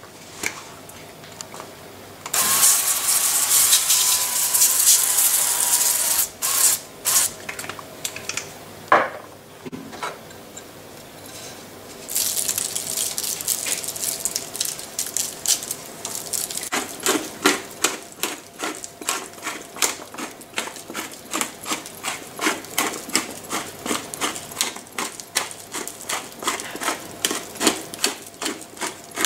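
A hand-twisted pepper mill grinding over a baking tray, giving a fast, even run of crunching clicks through the second half. About two seconds in comes a few seconds of steady hiss from oil being sprayed.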